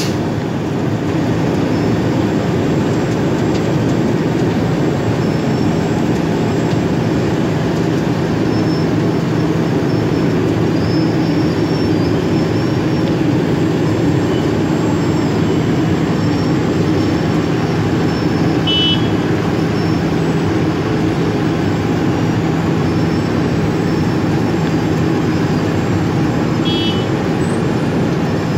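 Cold milling machine running steadily under load, its diesel engine and cutting drum grinding up road asphalt while the conveyor carries the millings into a dump truck. Two short high beeps sound over it, about two-thirds of the way in and again near the end.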